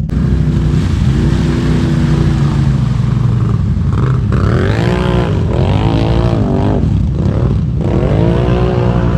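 Can-Am ATV's V-twin engine revving in repeated blips, its pitch rising and falling three or four times over a steady low engine rumble, as the machine works in deep mud.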